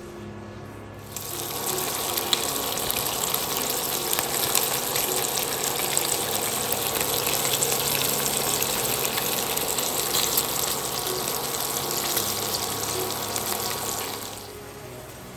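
Bacon strips sizzling and crackling in a frying pan, starting about a second in and dying away shortly before the end.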